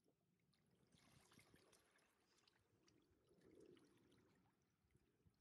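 Near silence, with small waves faintly lapping and trickling at the water's edge, swelling about a second in, with scattered small ticks.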